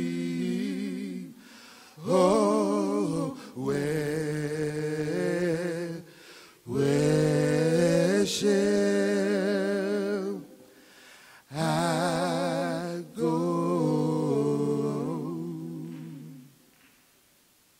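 Men singing a cappella, with no instruments: slow, drawn-out gospel phrases with a strong vibrato, broken by short pauses for breath. The last phrase fades out about sixteen seconds in.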